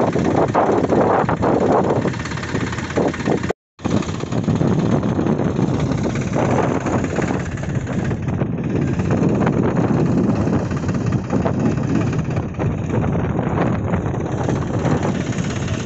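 Tractor engine running steadily, broken by a moment of silence about three and a half seconds in.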